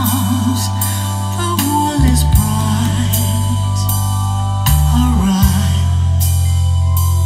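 A song with a singing voice, deep sustained bass notes and drum hits, played back through a pair of Yamaha NS-1000M three-way monitor loudspeakers.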